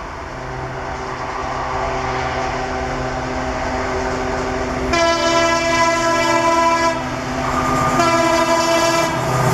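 WDG 3A diesel locomotive's ALCO 16-cylinder engine running under load as it approaches, growing louder. Its air horn sounds twice: one blast of about two seconds halfway through, then another near the end.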